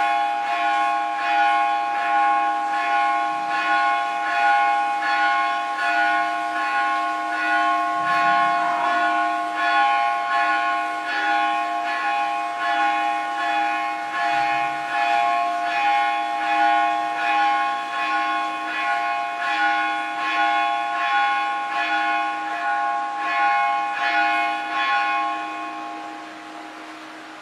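Temple bell rung continuously during the abhishekam (ritual bathing of the deity), struck rapidly over and over so its tones pulse and keep on ringing; it stops a little before the end.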